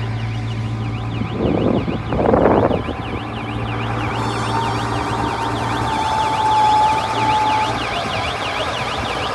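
Straw baling machine running with a steady motor hum, under a continuous fast-warbling siren-like tone. There are two loud noisy bursts about one and a half and two and a half seconds in, and a held tone from about halfway through.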